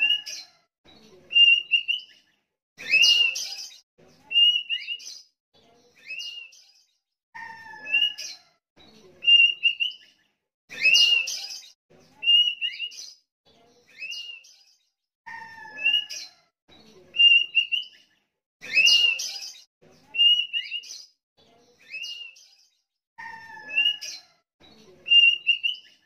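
Sooty-headed bulbul singing: short, clear whistled notes and phrases with pauses between, the same sequence repeating about every eight seconds.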